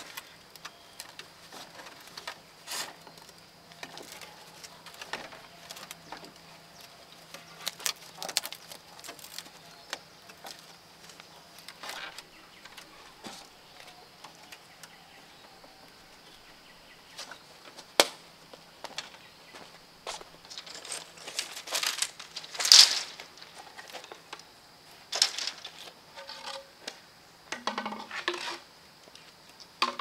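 Bamboo slats and strips clicking, clacking and rustling as they are handled and tied onto a bamboo coop wall. The clacks come irregularly, the sharpest about 18 and 23 seconds in. A steady high insect drone runs behind.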